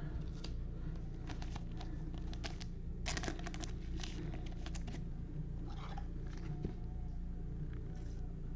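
Thin clear plastic crinkling as a trading card is slid into a plastic sleeve, in scattered short crackles that come thickest about three seconds in, over a steady low hum.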